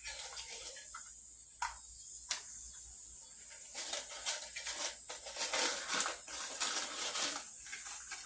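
A backpacking cook pot is handled and unwrapped by hand: a few light clicks of the pot, then several seconds of crinkling and rustling from the aluminium foil and Reflectix insulation wrapped around it.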